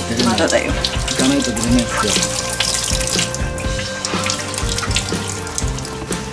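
Water trickling and splashing into a grooming tub as a wet towel is wrung out over a small wet dog, with background music underneath.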